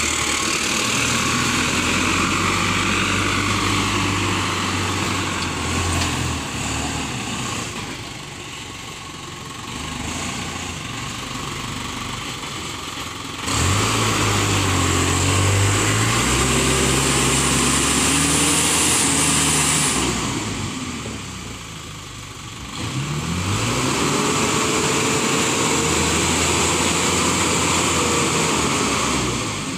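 Isuzu Elf NMR71 truck's diesel engine running, revved up sharply about halfway through, easing off, then revving up again and held high while the dump bed is raised to tip its load of earth.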